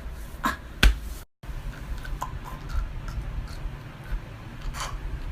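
A few scattered short clicks and knocks over a low steady hum. The loudest knock comes just under a second in, and the sound cuts out completely for a moment just after it.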